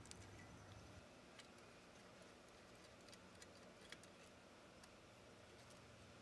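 Near silence: faint room tone with a few scattered faint ticks, the clearest about four seconds in.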